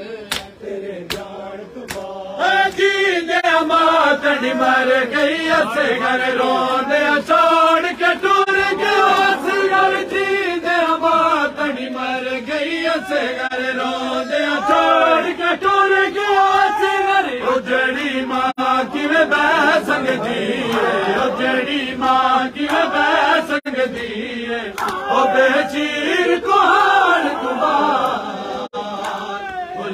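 Men's voices chanting a noha, a Shia mourning lament, together in a swaying, repeated melody. The chant comes in about two seconds in, after a few sharp slaps.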